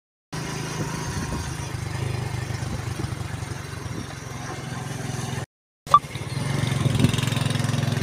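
Motorcycle engine running steadily while riding along a road, with a rapid, even pulse. The sound drops out for a moment about five and a half seconds in, then carries on.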